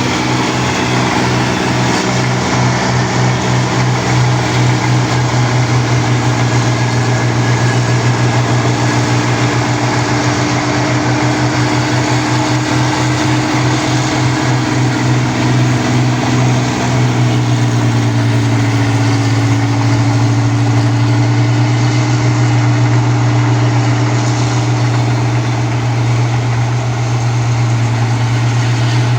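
Rice combine harvester's diesel engine running steadily with a loud drone and machinery clatter, throbbing at first and settling to a smoother hum a little past halfway.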